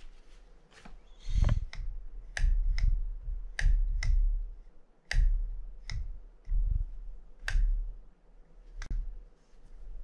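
Small metal reel parts and hand tools clicking and tapping on a workbench while a Penn Spinfisher 750SS spinning reel is taken apart by hand. There are about a dozen irregular sharp clicks, most with a dull knock.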